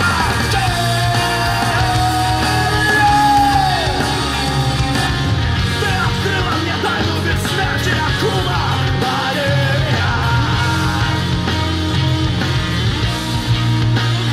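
Hard rock song with loud sung vocals over steady bass and guitars, played through a pair of Korvet 75AC-001 three-way loudspeakers. Partway through, the playback switches from the speakers in factory form to the pair whose mid-range and tweeter drivers have been replaced with modern branded ones.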